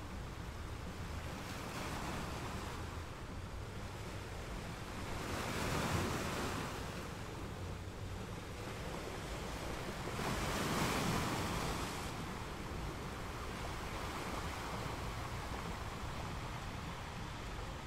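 Sea waves washing in slow surges that swell and fade every few seconds, the strongest two about a third and about two thirds of the way through.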